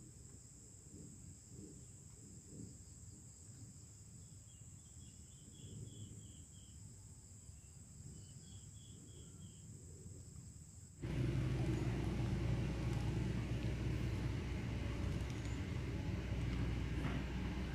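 Quiet outdoor ambience with a steady high insect drone and a few short bird chirps. About eleven seconds in, it cuts suddenly to a loud, steady low rumble.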